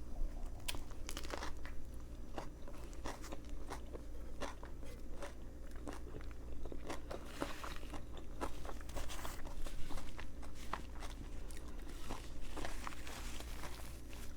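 A person biting into and chewing a Subway veggie patty footlong sandwich, with many short, irregular crunching clicks.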